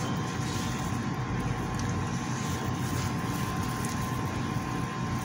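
Steady machine hum and low rumble with a faint constant high whine, unchanging throughout.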